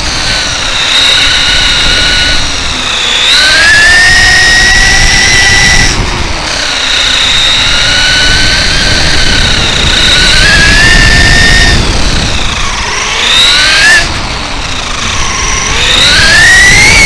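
Brushless electric motor and spur-gear drivetrain of a Traxxas E-Revo 1/10 RC truck whining, its pitch rising and falling again and again as the truck speeds up and slows. Underneath is a steady rumble of tyres on asphalt and wind noise.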